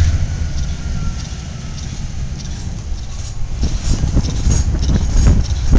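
Welded rail train rolling past: a steady low rumble with a faint falling tone early on, then irregular clicks and clanks from the wheels and cars from about three seconds in.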